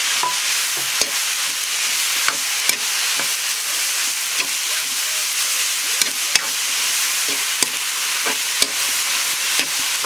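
Banana flower and red lentils sizzling in hot coconut oil in a black iron wok, stirred with a metal spatula that scrapes and clicks sharply against the pan at irregular moments over a steady frying hiss.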